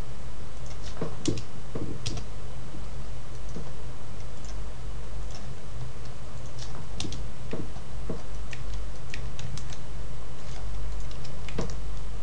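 Irregular clicks of a computer keyboard and mouse, spaced unevenly, over a steady low hum.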